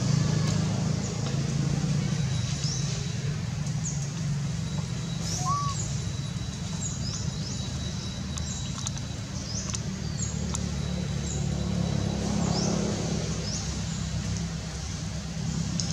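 Small birds chirping: many short, high chirps scattered throughout, over a steady low rumble.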